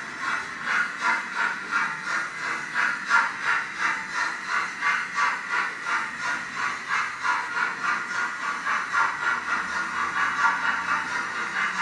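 HO-scale model steam locomotive chuffing as it runs, a steady rhythm of hissy steam beats, about two to three a second.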